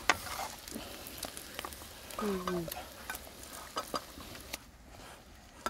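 Crickets frying in oil in a wok, sizzling as a spatula stirs and scrapes them around the pan, with scattered clicks and scrapes. A short, falling, voice-like sound is heard about two seconds in.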